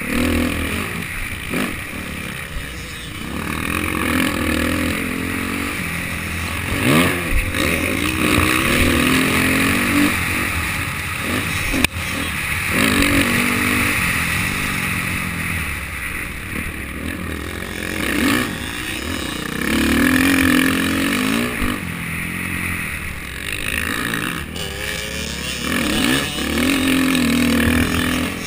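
Motocross bike engine revving up and dropping back again and again as the rider accelerates and shifts along the dirt track, heard from the rider's helmet.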